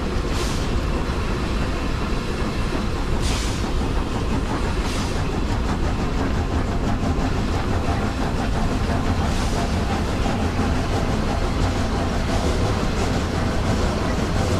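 Steam-hauled narrow-gauge train of Setesdalsbanen's locomotive No. 6 running along the line: a steady low rumble of wheels and carriages, broken by a few short hisses.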